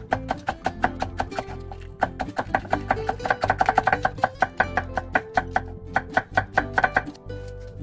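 Chef's knife rapidly shredding cabbage on a wooden cutting board: quick, even cuts, several a second, each ending in a knock on the board, thinning out near the end.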